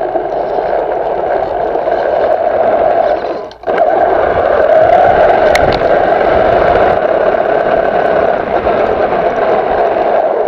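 Large RC car's electric motor and drivetrain running at speed, heard close up from the camera mounted on the car: a loud, steady whine that cuts out for a moment about three and a half seconds in, then picks up again and drops away at the end as the car stops.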